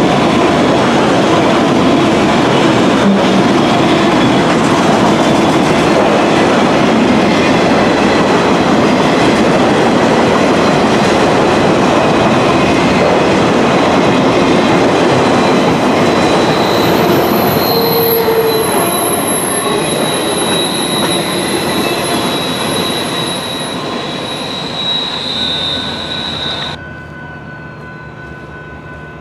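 Train rolling past close by, a steady loud rumble and clatter of wheels on rail. In the second half, high steady wheel squeal rises over it. The noise fades, then drops off suddenly near the end.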